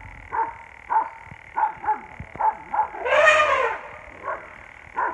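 Dogs barking repeatedly, short barks every half second or so, with one longer, louder drawn-out cry about three seconds in.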